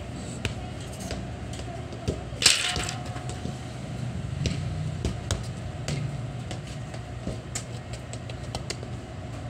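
A football being kicked and bouncing on a concrete yard: scattered sharp knocks, with one louder, noisier hit about two and a half seconds in, over a steady low hum.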